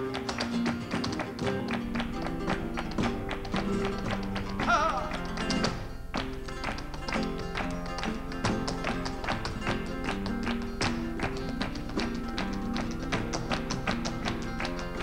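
Flamenco alegrías played on two flamenco guitars, with a dense run of sharp taps from the dancer's heel-and-toe footwork and hand claps over the guitars. A short wavering vocal call rises above the music about five seconds in.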